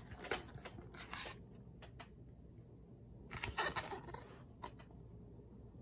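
A few short, soft rustles and brushes of a hardcover picture book being handled and swung round to show its page: paper and cover scraping. They come about a second in and again around three and a half seconds in.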